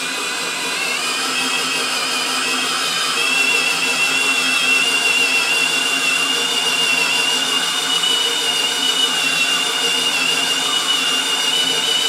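Cordless drill spinning a Lisle 15000 stone cylinder hone inside a 12 hp Briggs & Stratton cylinder, the stones grinding the bore out to 0.010 in oversize. The drill's whine rises slightly in pitch over the first few seconds, then holds steady.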